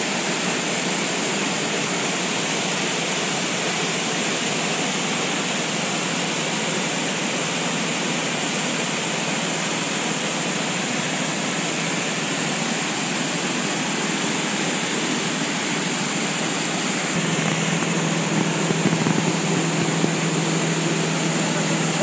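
Waterfall plunging into a rock pool, a steady loud rush of water. About three quarters of the way through, a low steady hum joins it.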